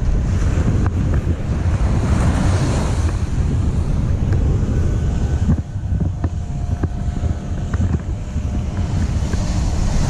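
Wind buffeting the microphone in a heavy, steady rumble, over the wash of ocean surf on the beach.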